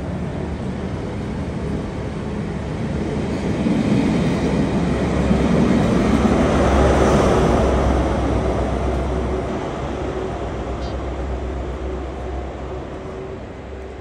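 A diesel test train of yellow coaches running through a station at speed, its wheels running on the rails. The noise grows to its loudest as the trailing Class 43 power car passes about halfway through, then fades as the train draws away.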